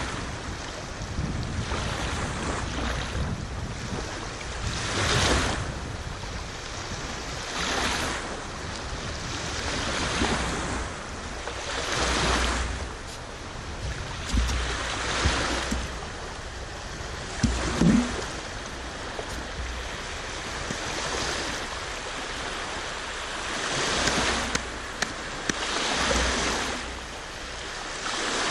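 Sea waves washing in, the surf swelling and falling back every two to three seconds, with a low wind rumble on the microphone.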